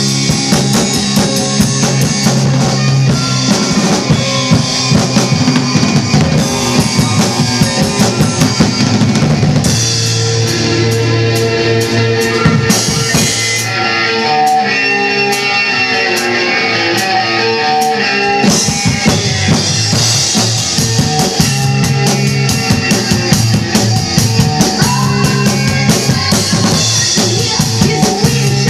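Rock song with guitar, played loud, with a live drum kit played along to it: kick, snare and heavy cymbal wash. From about ten seconds in the cymbals drop back and the music turns more melodic, then the full kit comes back in about eighteen seconds in.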